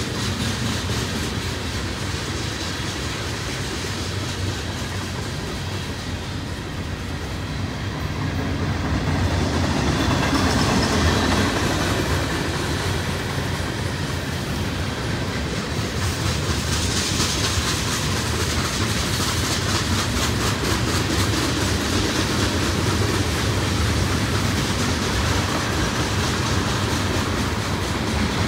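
Freight cars of a long mixed manifest train (covered hoppers, tank cars, boxcars) rolling steadily past, steel wheels clicking over the rail joints, growing louder about ten seconds in.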